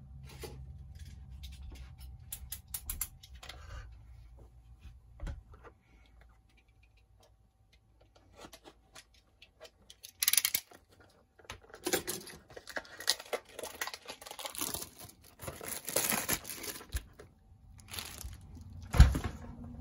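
Cardboard trading-card blaster box being torn open by hand: scattered scrapes, rips and taps, then a louder run of tearing and crinkling in the second half, with a sharp thump near the end.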